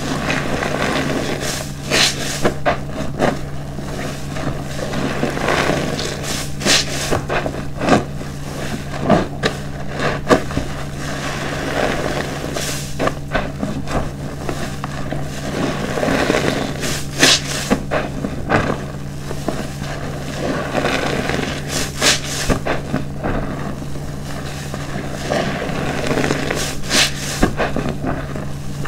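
A soapy car wash sponge squeezed and kneaded by hand in a basin of foamy dishwashing-detergent water. It makes repeated wet squelches and squishes with crackling suds at irregular intervals, over a faint steady low hum.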